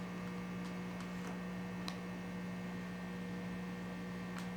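A steady low electrical hum with a few faint ticks.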